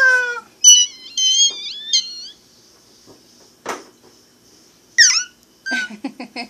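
A baby squealing: high-pitched, gliding shrieks for about a second and a half starting about a second in, and a shorter falling one about five seconds in, with a single knock in between.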